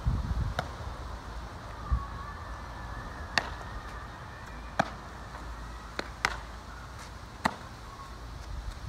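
A baseball popping into leather gloves during a game of catch: about six sharp pops a second or so apart, two of them in quick succession past the middle. A couple of low thumps near the start.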